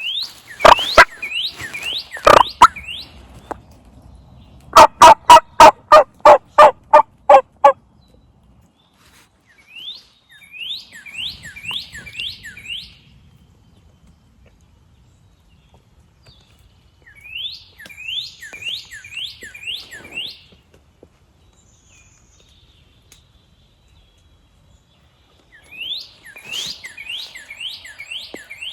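Hen wild turkey yelping close by: a run of about nine loud, evenly spaced yelps, with a few louder calls at the very start. A songbird repeats a short series of quick falling chirps every several seconds.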